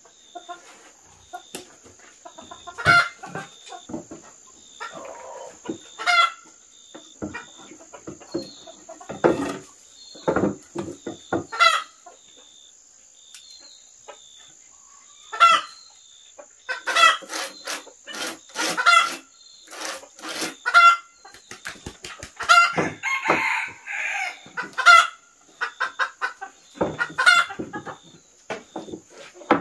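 Chickens clucking, with many short calls repeated throughout and a busier stretch about two-thirds of the way in.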